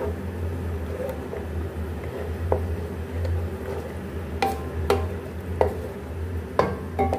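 Wooden spoon stirring a thick, wet tomato masala in a metal pan, with squelching movement and a few sharp knocks of the spoon against the pan, most of them in the second half. A steady low hum runs underneath.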